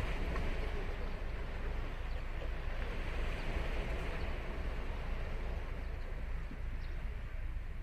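Ocean surf breaking and washing onto a sandy beach. It is a steady rush with a deep low rumble, and the wash swells about three seconds in.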